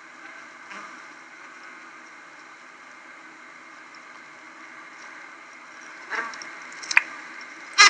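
Steady hum of a honey bee colony inside the nest, with three short pulses in the last two seconds, the loudest at the very end. The pulses are stop signals, brief vibrating beeps made by a forager that was pinched and has returned to the nest.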